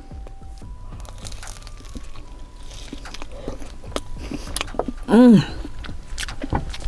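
Close-miked chewing and biting of a crispy fried chicken taquito, with small crunches and crackles throughout. A short hum from the eater about five seconds in is the loudest sound.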